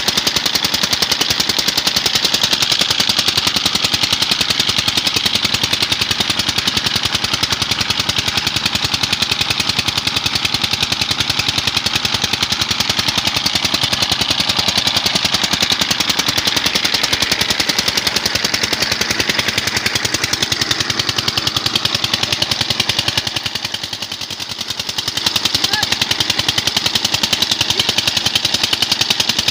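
Petter-type single-cylinder diesel engine running steadily while it drives a tubewell's centrifugal water pump, its exhaust a fast, even train of sharp beats. The sound drops briefly about three-quarters of the way in.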